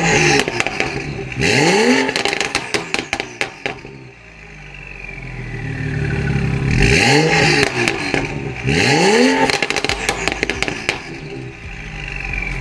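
BMW 335i's turbocharged N55 inline-six on a catless downpipe, revved at a standstill: a quick blip about a second and a half in and two more in the second half, each followed by a run of crackling burbles from the exhaust as the revs fall, idling in between. Pretty loud, with pronounced, frequent burbles.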